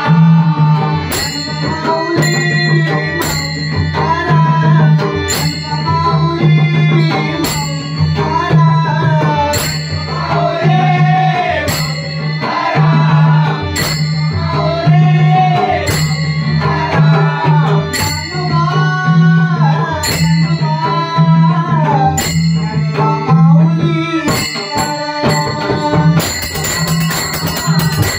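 Marathi bhajan: a man sings over a harmonium drone and a pakhawaj drum, while a group of taal hand cymbals clash together about once a second on the beat. Near the end the cymbals break into fast, continuous clashing.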